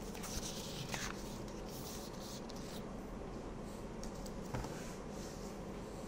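Faint scratchy rustling, as of a pen or stylus moving, with a couple of light clicks, over a steady low electrical hum.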